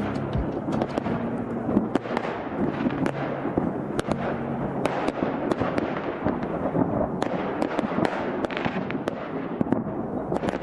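A dense barrage of fireworks: many sharp bangs and pops over a constant crackle.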